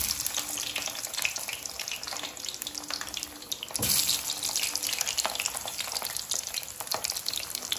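Frozen falafel patties frying in hot oil in a pan, the oil sizzling and crackling steadily with a louder flare of crackle about four seconds in.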